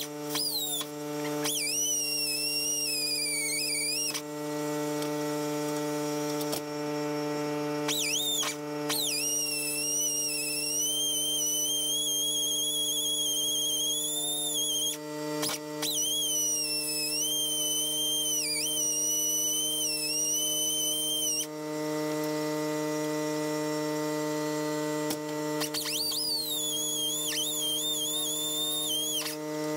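A high-speed power tool whines in four long runs, its pitch wavering and dipping as it loads up on the metal, over a steady low hum.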